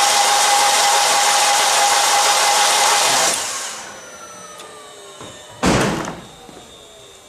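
1.8-litre turbo engine spun by its starter motor with the spark plugs out: an even, fast whir with a steady whine. The whir cuts off a little over three seconds in and the engine winds down with falling whines. A single loud thump follows near six seconds. The engine is being cranked to check for oil flow at the open oil-filter housing, and the owner suspects low oil pressure.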